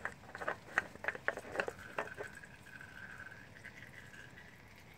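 Engine oil dripping and trickling from the oil filter mount down a makeshift plastic gutter into a drain pan: an irregular patter of drips for about the first two seconds, then a faint steady trickle that fades.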